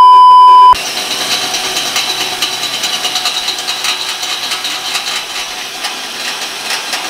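A loud, steady test-tone beep for just under a second. Then a cordless drill bores through stainless steel sheet: a steady whirring with a high whine from the bit cutting the metal.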